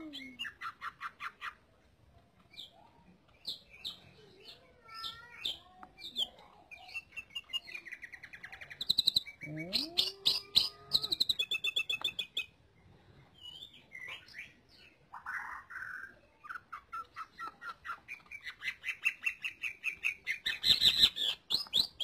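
Cucak ijo (greater green leafbird) singing a varied, rambling song of chirps, rapid trills and sliding whistles, with a fast, louder run of repeated notes near the end.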